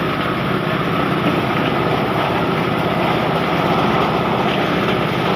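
Engine-driven corn sheller running steadily, a loud continuous mechanical clatter and engine noise.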